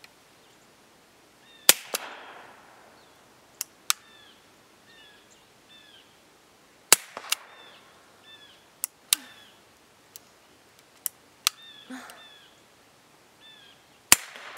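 Suppressed M1895 Nagant revolver firing 7.62x38R rounds through an AAC TiRant 9 titanium suppressor: a string of sharp cracks a second or more apart, several in close pairs, each loud one trailing a short echo.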